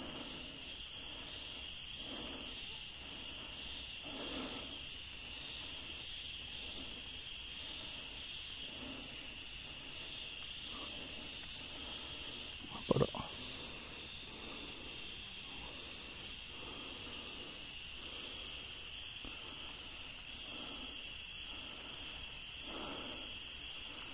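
Steady high-pitched drone of a nighttime insect chorus in tropical forest, with soft low pulses every second or two and a single sharp click about halfway through.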